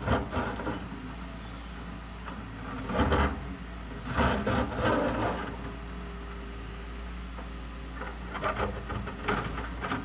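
A wheeled excavator's diesel engine runs with a steady low hum, under four bursts of scraping and crackling, about three seconds apart, as the machine digs.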